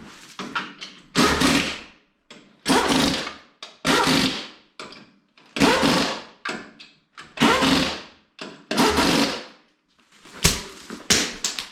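Impact wrench tightening the wheel's lug nuts in about six short bursts of hammering, one every second or two, with a few sharp clicks near the end.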